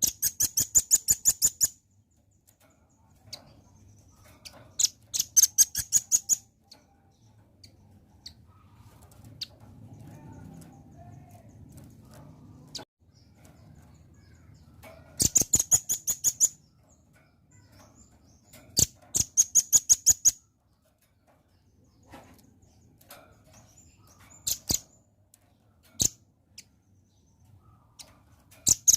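Velvet-fronted nuthatch calling: four fast trills of sharp, high chips, each about a second and a half long and several seconds apart, with single chips in between. A faint low rumble runs underneath.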